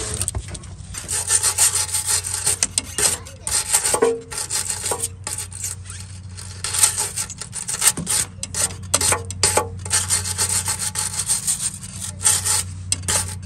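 Wooden-handled steel wire brush scrubbing rapidly back and forth over the dirty, rusty oil pan around the drain plug, in runs of strokes with short pauses, over a steady low hum.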